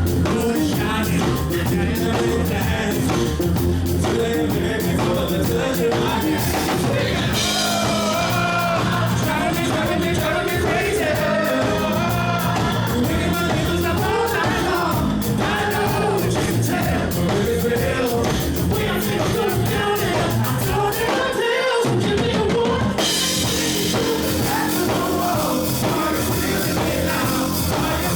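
Loud live music: a singer over a dance-pop backing with drums. The bass drops out for a moment about three-quarters of the way through, then the full beat comes back with brighter cymbals.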